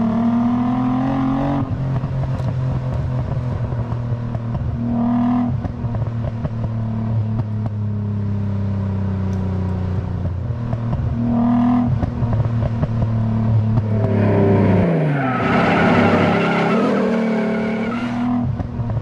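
Nissan 300ZX's V6 engine running steadily and evenly, now firing on all cylinders after a failed ignition coil was replaced. Its pitch drops sharply about fourteen seconds in, and the sound grows louder and rougher for a few seconds after.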